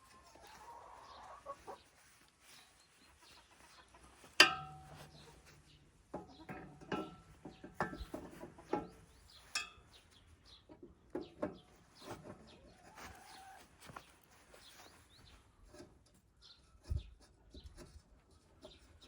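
Scattered metal clanks and knocks from parts and tools being handled on a diesel walk-behind tractor, with one loud ringing clang about four seconds in.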